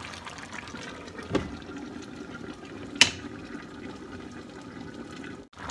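Coconut-milk sauce with crab simmering in a wok, a steady bubbling hiss. A dull knock comes about a second in, then a sharp clink about three seconds in as a glass lid is set on the pan.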